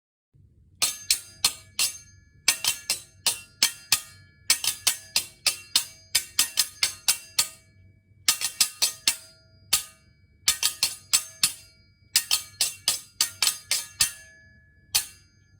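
Small metal object struck again and again with a bell-like ring, in quick rhythmic runs of several strikes separated by short pauses.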